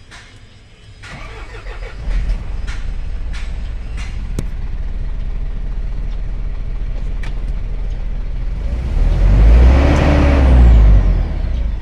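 Isuzu 4HK1 four-cylinder diesel engine cranking and catching about two seconds in, then idling steadily. Near the end it is revved up and falls back to idle.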